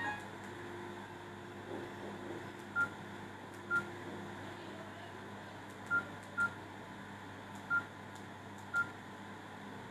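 Short electronic beeps at one high pitch, six of them at uneven intervals, over a faint steady hum.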